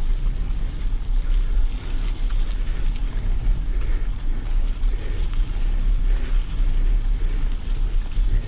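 Wind buffeting an action camera's microphone over the steady low rumble of a Specialized Enduro Comp mountain bike's tyres rolling fast down a leaf-covered dirt trail.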